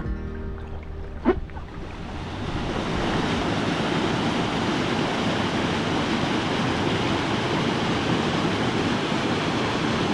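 Steady rushing of a whitewater rapid pouring between boulders, setting in about two seconds in after the end of a stretch of music, with a single knock near the start.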